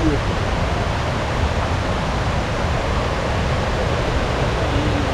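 Steady rushing noise of a waterfall's falling water.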